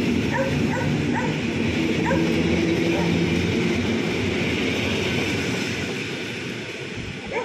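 PolRegio EN57 electric multiple unit pulling away and rolling past close by, with a low motor whine. Short squeaks repeat quickly in the first couple of seconds, and the noise fades as the rear of the train passes.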